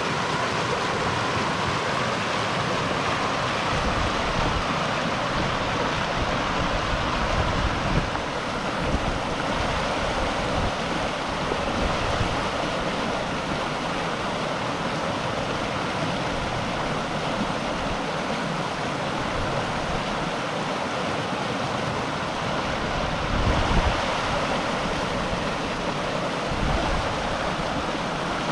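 River water rushing and splashing in a steady, continuous flow, with a few brief low rumbles, the strongest about 24 seconds in.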